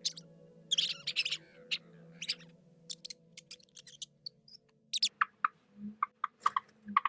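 Rats squeaking: a series of short, sharp, high-pitched squeaks in quick clusters, with a flurry about a second in and another run of brief squeaks near the end.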